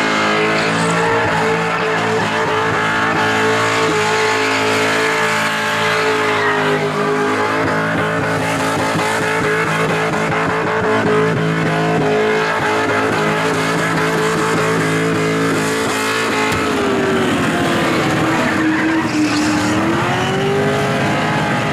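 V8 Holden Commodore doing a burnout, engine held at high revs with the rear tyres spinning and squealing. About two thirds of the way through, the revs drop and then climb again.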